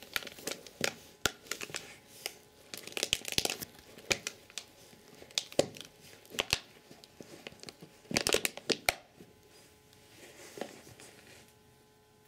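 A 10-week-old golden retriever puppy chewing and wrestling a plush toy: irregular rustling and crinkling of the fabric with many sharp clicks. It is busiest about three and eight seconds in, then dies away near the end.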